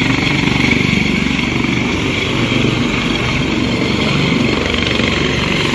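Helicopter running close by as it touches down, its rotor churning up dust: a loud, even rush of rotor and engine noise.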